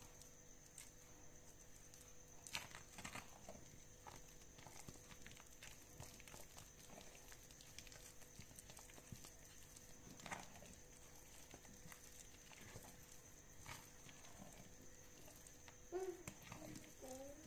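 Faint, irregular sticky squelches and soft taps of a spatula stirring thick melted soap paste in a pot, with a small cluster of louder taps near the end.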